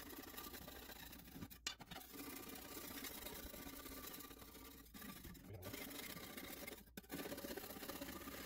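A hand scraper rasping up and down over the wet, rusty surface of a Lodge cast iron griddle, scraping off rust and heavy buildup. There are a few short breaks between runs of strokes.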